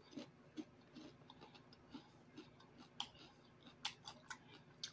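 Faint mouth sounds of a person chewing food with the mouth closed: scattered soft, wet clicks and smacks, a few sharper ones near the middle and toward the end, over low room tone.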